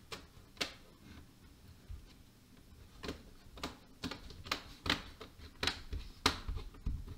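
Sharp plastic clicks and taps as hands press along the edges of an Acer TravelMate P214 laptop's display bezel, seating it around a newly fitted screen. A dozen or so irregular clicks, the loudest near the end.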